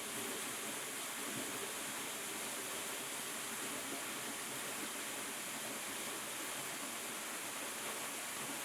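Small stream of running water, a steady rushing hiss with no break or change.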